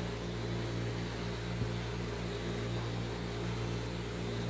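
Powder coating spray booth and electrostatic powder gun running while white powder is sprayed: a steady low machine hum with a fast regular pulsing, over an even hiss of air and powder.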